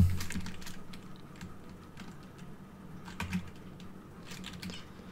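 Computer keyboard keys clicking in short, scattered runs of typing.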